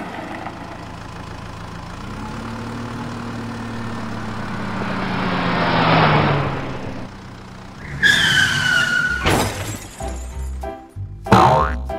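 Cartoon sound effects with background music: a whoosh over a low engine-like hum that swells to a peak about six seconds in and fades, then a short high squeal and a run of crash-like hits and sweeps near the end.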